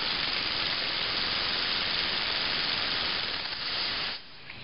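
Steady hiss of compressed air from a pistol-grip blow gun fed into a small single-acting oscillating steam engine to start it. The hiss drops away about four seconds in.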